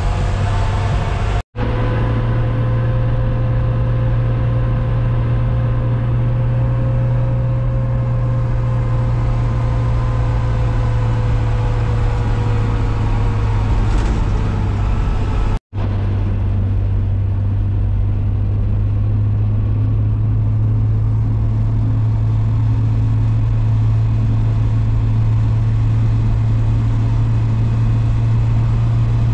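Motor vehicle driving, a steady low engine and road drone, broken twice by a momentary cut.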